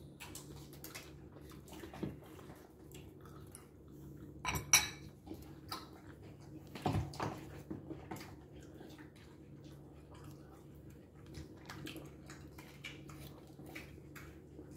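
Metal fork clinking and scraping against a glass bowl while eating, in scattered light clicks, with one louder clink a little under five seconds in and another about seven seconds in. A faint steady low hum runs underneath.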